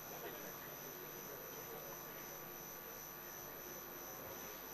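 Quiet hall room tone on a broadcast feed: a steady electrical hum and a thin high whine, under a faint murmur of voices.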